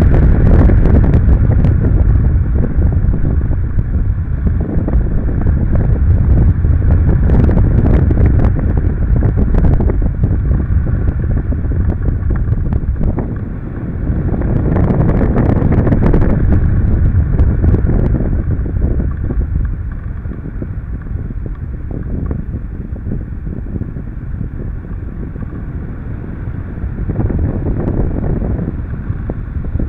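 Wind rushing over a microphone mounted on a hang glider in flight: a loud, low rumbling rush. It is strongest in the first half, dips briefly, swells again a little past the middle and again near the end, with a few brief clicks about eight to ten seconds in.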